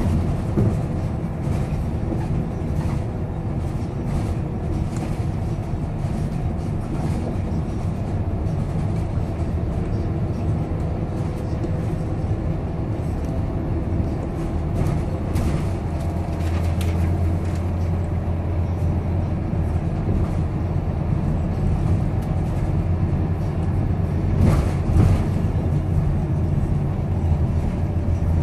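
Scania K230UB bus's five-cylinder diesel engine and road noise heard from inside the saloon while the bus drives along: a steady low drone that grows stronger for a stretch in the second half, with scattered rattles and clicks from the interior fittings.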